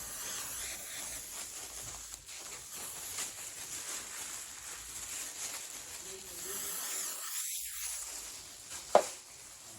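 Aerosol glue spray can hissing steadily as lace glue is sprayed onto a wig's lace, with one sharp click near the end.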